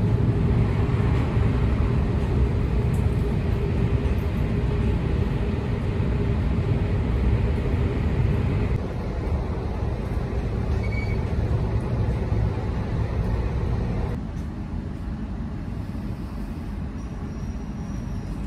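Steady rumble of a train running, heard from inside the passenger carriage. The noise drops a step about nine seconds in and again a few seconds later.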